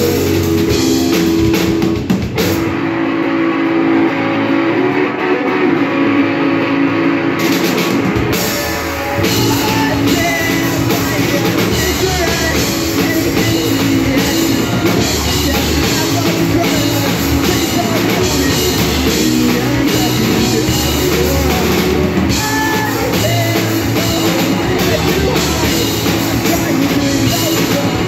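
A live rock band plays: two electric guitars and a drum kit, with vocals at times. About two seconds in, the drums and low end drop out and the guitars carry on alone for about five seconds, then the full band comes back in.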